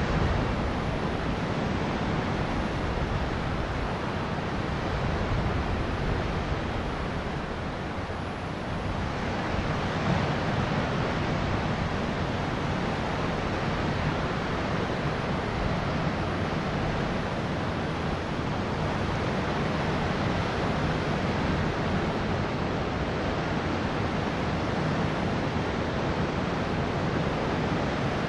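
Sea waves rushing in a steady wash, with wind on the microphone; it eases briefly about eight seconds in, then swells again.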